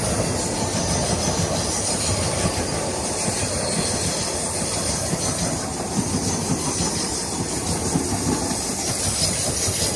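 Passenger train running at speed: a steady rumble and clatter of coach wheels on the rails.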